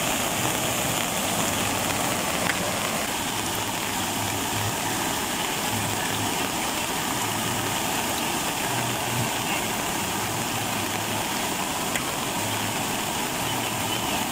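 Steady rush of floodwater pouring across a road, mixed with the hiss of rain.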